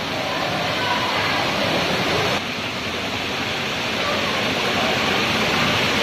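Steady rush of a waterfall pouring into a narrow rock canyon, with faint voices of people beneath it. The level dips slightly about two and a half seconds in.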